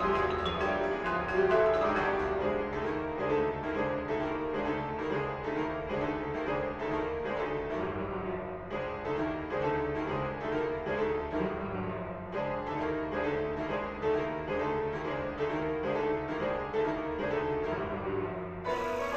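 Instrumental soundtrack music led by a keyboard playing fast, repeated, evenly pulsed notes, with a change in texture near the end.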